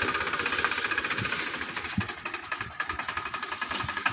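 Powertrac tractor's diesel engine running, a rapid, even clatter.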